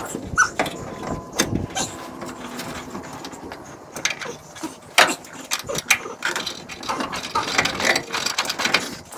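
Irregular clicks, knocks and rattles of hand tools and parts being worked while fitting the heater box and its studs into the car.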